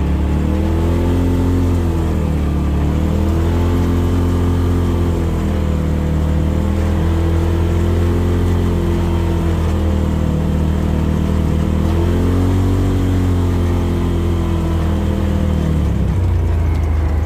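Side-by-side UTV engine running under way, its pitch rising and falling every second or two as the throttle and speed change.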